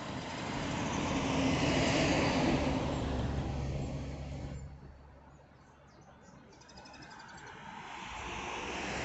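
A car passing, its engine and tyre noise swelling to a peak about two seconds in and fading away. A second vehicle approaches and swells near the end. Faint bird chirps come through in the lull between.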